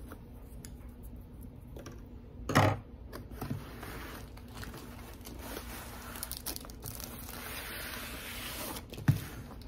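Plastic mailer package being handled and opened, its plastic crinkling and tearing, with a rustling hiss that swells near the end as the contents are slid out. A sharp knock about two and a half seconds in and another near the end.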